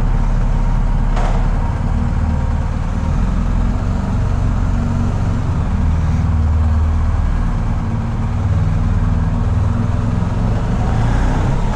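BMW R 1250 GS Adventure's boxer-twin engine running with a steady low rumble.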